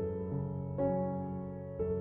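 Background music: soft piano playing slow held notes and chords, changing about once a second.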